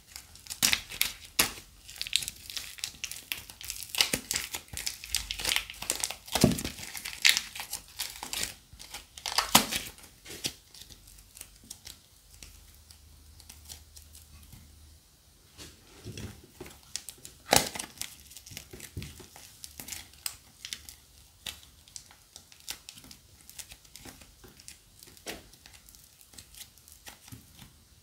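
Plastic bag material crinkling and crackling as it is handled, as in crunchy bag slime being squeezed and worked. The crackles come densely for the first ten seconds or so, then sparser, in scattered clusters.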